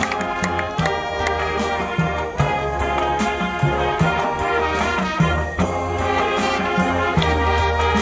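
High school marching band playing a rock-style field show: full brass chords over a steady drum beat and a pulsing low bass line.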